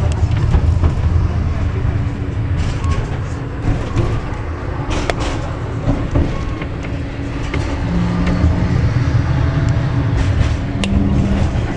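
Interurban tram running along its track, heard from inside the car: a steady rumble of wheels on rail and running gear, with a sharp click about five seconds in and another near the end.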